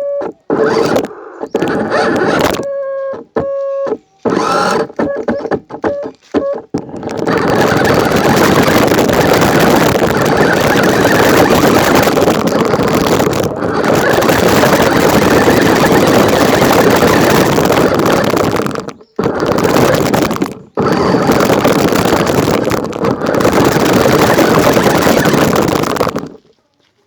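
Toy RC car's small electric motor whining in short start-stop bursts, then a loud continuous rushing noise with a few brief breaks for most of the rest.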